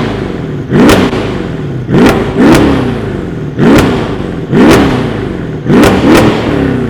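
Weistec-tuned Mercedes-AMG CLS 63 V8 being revved hard again and again, about seven quick blips, each rising and falling in pitch with a crack at the top of the rev. It is loud, so loud that standing behind it at full throttle calls for covering one's ears.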